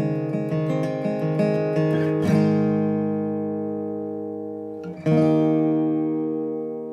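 Acoustic guitar music: quick picked notes, then a strummed chord about two seconds in that rings and fades, and another strummed chord about five seconds in left to ring out.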